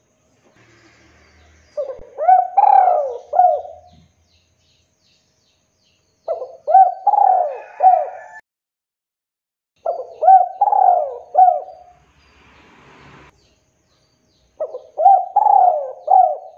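Male spotted dove cooing: four phrases of several quick coos each, one about every four seconds.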